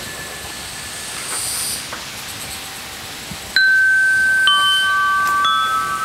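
Handheld metal chimes struck three times, roughly a second apart, starting a little past halfway. Each clear bell-like note rings on and overlaps the next. Before the strikes, an earlier chime note fades out under a faint high shimmer.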